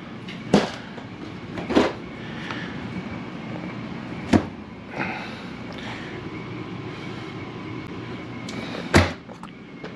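Refrigerator and freezer doors being handled and opened, giving several sharp clicks and knocks, the loudest about nine seconds in. Under them is a steady hum, which fits the RV's running ducted roof air conditioner.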